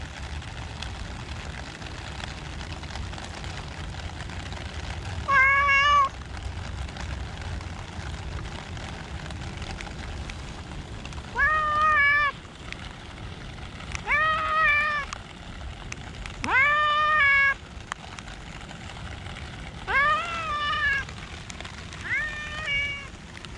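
Domestic cat meowing six times, loud calls of about a second each that rise in pitch at the start and then hold, spaced a few seconds apart.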